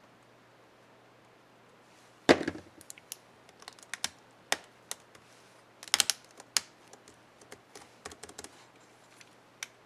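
Plastic clicks and snaps from an HP Stream 11 laptop's Shift keycap being fitted onto its keyboard and pressed. There is a sharp, loud snap a couple of seconds in, then irregular lighter clicks.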